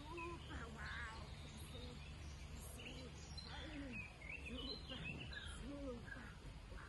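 Faint outdoor ambience: a low steady background rumble with birds chirping on and off and faint distant voices.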